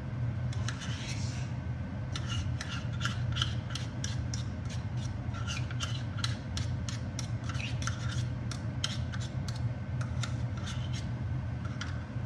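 A utensil scraping the last of the ketchup out of a bottle: a run of short rasping scrapes, unevenly spaced at about two to three a second.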